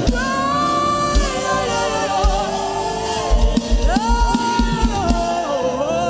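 Gospel worship music: a lead voice sings long held, gliding notes without clear words over a sustained backing and a low drum beat that grows busier about halfway through.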